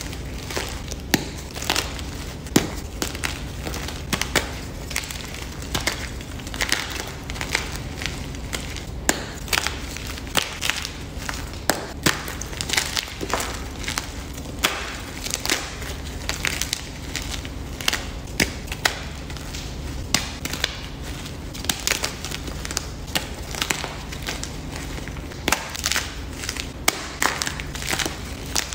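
Blocks of Cali Crush plain gym chalk crushed and crumbled by hand: irregular crunches and sharp snaps as chunks break apart, several a second, with powdery grinding between.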